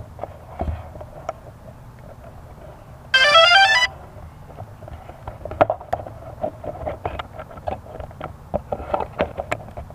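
A short electronic jingle of quickly rising stepped beeps, lasting under a second about three seconds in, the loudest sound here. Around it, scattered light ticks and scuffs.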